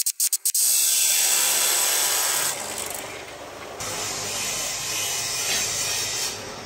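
Abrasive cut-off saw grinding through a thick steel pipe, a loud hissing grind. About two and a half seconds in it drops to a quieter, steadier noise.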